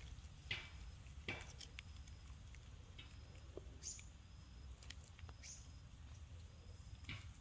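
Quiet ambience under a steady low rumble: faint scattered ticks and crackles, with a few faint short high chirps.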